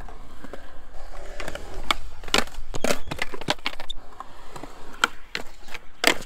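Skateboard wheels rolling on smooth concrete, broken by several sharp wooden clacks of a board popping, landing and slapping the ground.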